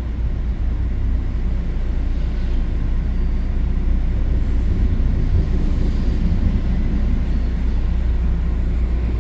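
Steady low rumble of a commuter train running at speed, heard from inside the passenger coach.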